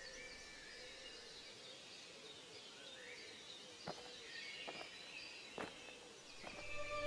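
Faint rural ambience of small birds chirping and twittering, with a few soft clicks a little past the middle.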